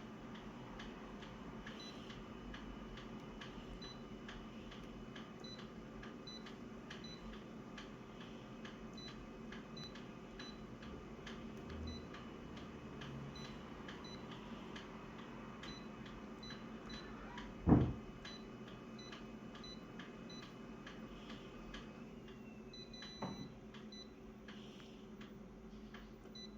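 Steady ticking, about two ticks a second, over a faint steady hum, with one sharp knock about two-thirds of the way through.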